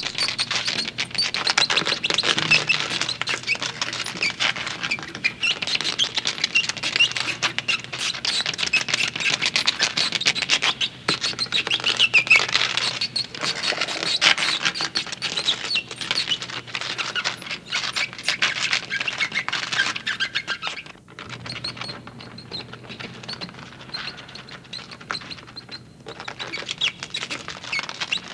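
Dense, rapid clicking and high chittering chirps, a creature sound effect from a haunted-house attraction's soundtrack. It grows sparser and quieter about three quarters of the way through.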